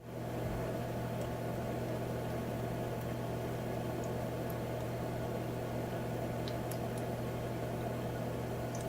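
Humidifier running: a steady low hum under an even rushing noise, with a few faint scattered ticks. It comes up to full level in the first half second.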